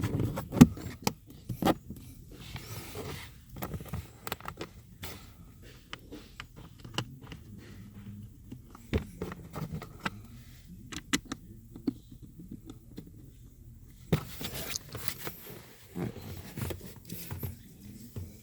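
Hand-work noises on car interior trim: irregular clicks and knocks of plastic parts, with rustling about two-thirds of the way through.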